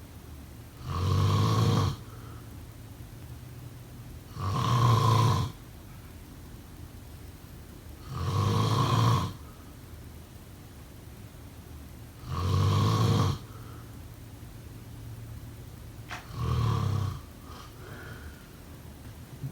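A sleeping person snoring in a steady rhythm: five loud snores about every four seconds, each lasting about a second, with a fainter low rasp on the breath after each one. A short click comes just before the fifth snore, which is a little weaker than the rest.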